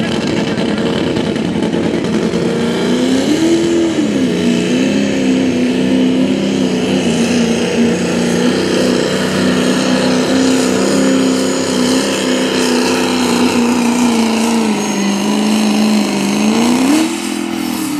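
Turbocharged diesel pickup truck pulling a weight-transfer sled at full throttle. The engine revs up about three seconds in, holds a steady, hard-working pitch under load, rises briefly near the end, then drops off as the driver lets off.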